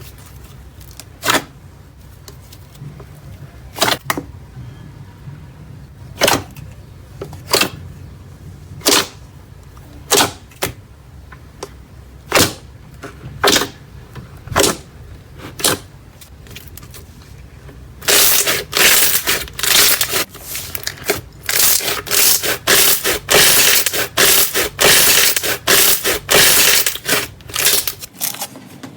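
Slime being squeezed and pressed, with sharp pops of trapped air about once a second. About eighteen seconds in, it turns to a dense, fast crackling and crunching.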